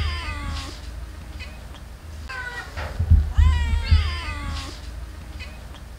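Cat meowing for food: a long meow that rises and then falls in pitch about two and a half seconds in, after the tail of another at the start, with a few short faint calls between. Low thumps sound under the meow about three seconds in.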